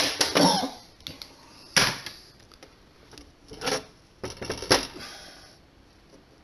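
Metal tools and small sewing machine parts handled and set down on a workbench: a few sharp clicks and knocks, the loudest about two seconds in and near five seconds.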